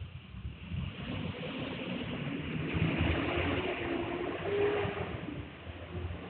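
Street traffic below: a vehicle's rumble that swells over the first few seconds, carries a faint whine around the middle, and eases off near the end.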